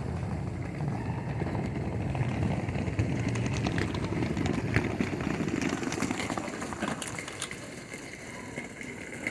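Railway platform noise around a standing train: a low rumble that fades over the first few seconds, then a scatter of short clicks and knocks.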